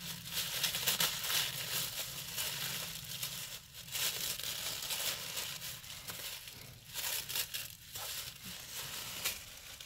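A plastic gift bag and tissue paper crinkling and rustling as they are handled and pulled open by hand, in a run of crackly rustles with short pauses.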